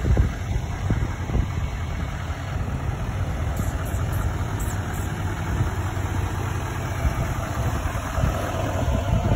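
Chevrolet Silverado 3500 pickup's Duramax V8 turbodiesel idling steadily.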